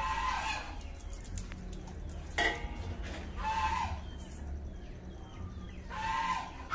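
Chickens calling in the yard: four drawn-out calls about a second or two apart, over a low steady rumble.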